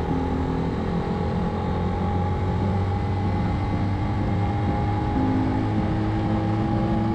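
Motorcycle engine running at a steady, even pitch.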